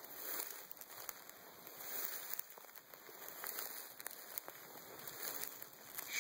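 Tall dry grass rustling and crackling with many light ticks, brushed aside by movement through it.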